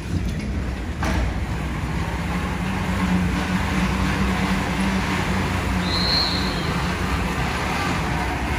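Team of draft horses pulling a horse-pull dynamometer truck across a dirt arena: a steady mechanical rumble from the dragged truck, with a short high whistle about six seconds in.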